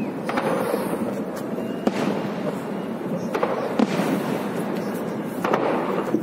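Aerial fireworks shells bursting: a string of sharp bangs at uneven gaps of about a second, some coming in quick pairs.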